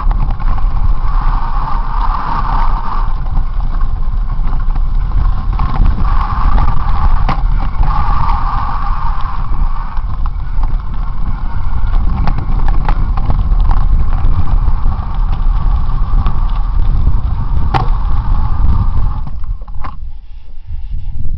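Wind buffeting a helmet-mounted camera's microphone while a mountain bike rides a bumpy, rocky dirt trail, with scattered knocks and rattles from the jolts. The noise dies down briefly near the end.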